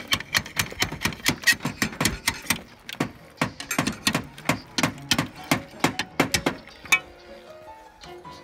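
A roofer's hand slate cutter chopping along the edge of a roofing slate in a fast run of sharp cracks, about four a second, each blade stroke nibbling off a chip of slate. The cracks stop about seven seconds in.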